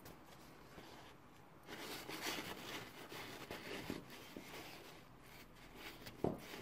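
Paper napkins rustling and crinkling as they are folded and tucked into a glass by hand, with a soft thump near the end.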